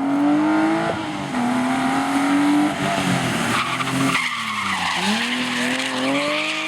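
BMW E30 rally car's engine driven hard, its pitch climbing and then dropping sharply at shifts about one and three seconds in. Around four seconds in it comes off the throttle and the revs sink before climbing again, with a burst of tyre and skid noise in between.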